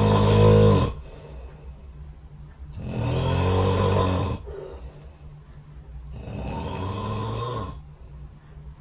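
A sleeping person snoring in a slow, regular rhythm. One snore is already under way and ends about a second in, then two more follow about three seconds apart, each lasting a second and a half to two seconds, the last one weaker.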